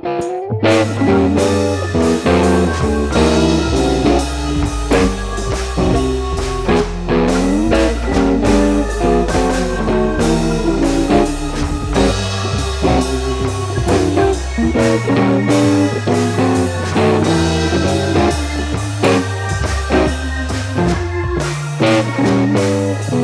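Background music with guitar, a bass line and a steady drum beat.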